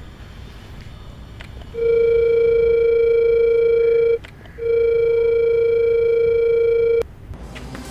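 Telephone line tone of an outgoing call: two long steady beeps at one pitch, each about two and a half seconds, with a short break between, cut off by a click.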